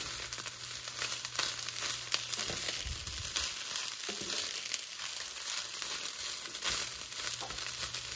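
Fried rice with egg and vegetables sizzling in a nonstick frying pan as a spatula tosses and stirs it, with a steady hiss and irregular scrapes and scuffs of the spatula through the rice and against the pan.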